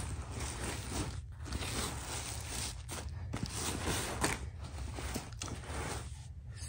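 Rustling and handling noise as a black leather-look jacket with tissue paper in its zips is moved and smoothed out by hand, broken by a few short pauses.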